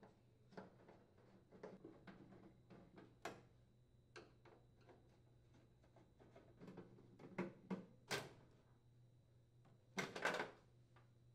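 Faint clicks and scrapes of a Phillips screwdriver turning out the mounting screws of a microwave's bottom panel, with a few sharper knocks. The loudest clatter comes about ten seconds in, as the panel is pulled loose.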